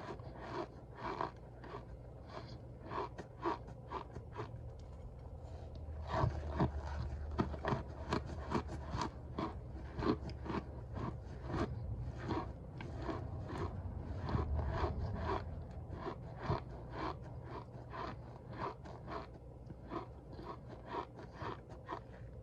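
Packed cornstarch crunching and squeaking in a long run of short, crisp strokes, thickest and loudest in the middle stretch.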